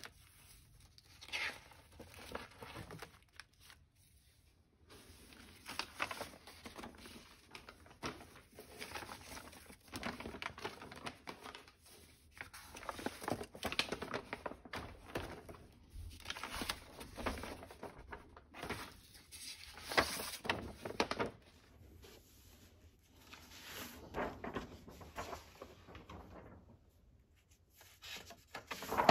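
Paper rustling and crinkling as thick sketchbook pages are turned and large loose sheets of artwork are handled, in irregular bursts with short pauses.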